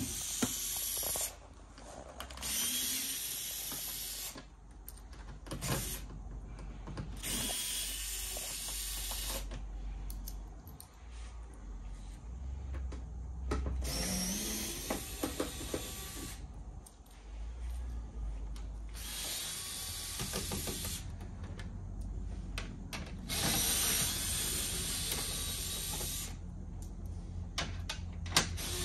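Cordless drill/driver running in repeated short runs with pauses between, spinning out the Torx screws and 7 mm bolts that hold a C7 Corvette's front wheel-well liner and lower bumper.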